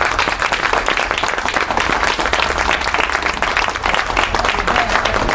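A group of people applauding: many hands clapping, dense and steady throughout.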